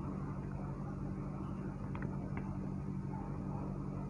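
A steady low mechanical hum with a faint hiss behind it, and two faint light clicks about two seconds in.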